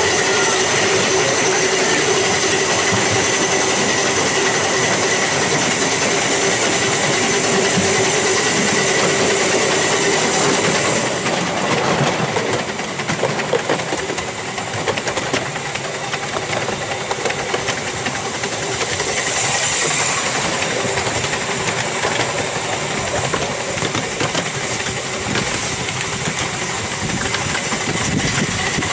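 7¼-inch gauge miniature steam locomotive and its train running along the track, heard from the carriage right behind: a steady running noise of engine and wheels on rail. It is louder inside a tunnel, then drops and turns more uneven about eleven seconds in as the train comes out into the open.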